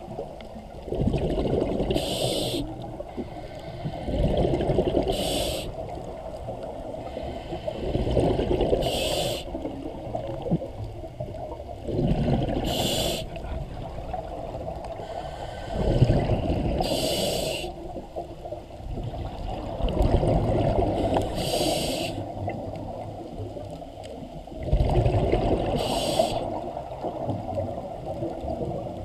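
Scuba regulator breathing heard underwater. A short hiss of air on each breath comes about every four seconds, alternating with longer bubbling rumbles of exhaled air.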